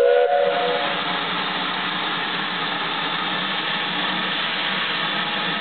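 Steady hiss of steam from a standing steam tank locomotive. A brief tone at the very start cuts off within the first second.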